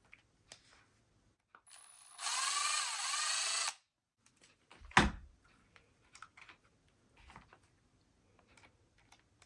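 Small electric screwdriver running for about a second and a half, backing out the tiny rear upper link screws on a 1/18-scale RC crawler. About five seconds in there is one sharp click, with faint handling clicks around it.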